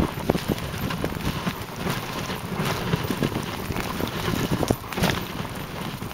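Dog sled running over a snowy trail: a steady crackling hiss of the runners on snow, broken by irregular knocks and rattles from the sled.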